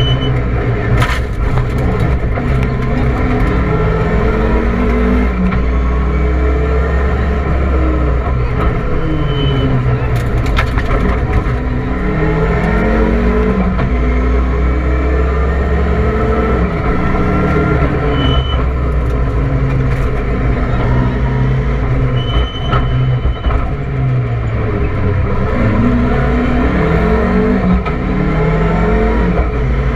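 Rally car engine heard from inside the cabin at full stage pace, the revs climbing and dropping again and again through gear changes. A few short high beeps sound now and then.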